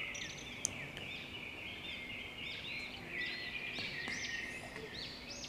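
Small birds chirping in the background, with many short rising-and-falling chirps overlapping continuously. A single sharp click comes just after the start.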